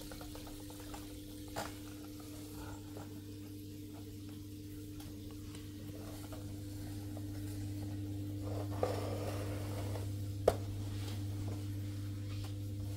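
Steady low electrical hum from running aquarium equipment, with a couple of faint knocks and one sharp click about ten seconds in.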